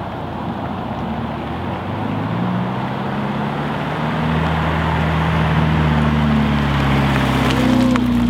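A 2018 Subaru WRX's turbocharged flat-four exhaust, run through a Nameless 3-inch axleback muffler delete, as the car drives up and passes close by. It grows steadily louder and is loudest near the end as the car goes past.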